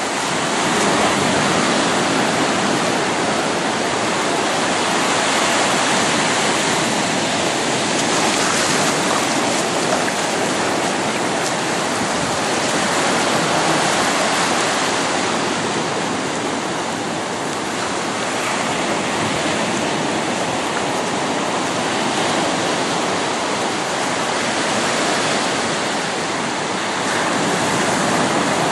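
Ocean surf breaking and washing up a sandy beach: a steady rush of water that swells and eases gently every few seconds.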